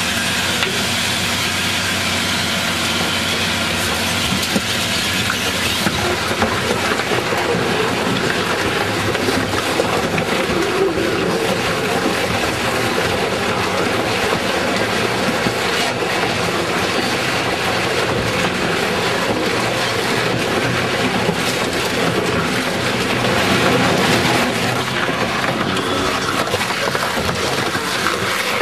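Grupo SPR RS 140-160 twin-shaft shear shredder running under load: a steady mechanical rumble with many small clanks as whole tyres sit on its counter-rotating cutter discs and are worked into them. It grows briefly louder near the end.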